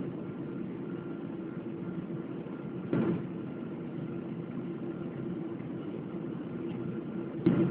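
Steady engine hum heard inside the cabin of a Boeing 777-200ER airliner, with two brief louder knocks: one about three seconds in, one near the end.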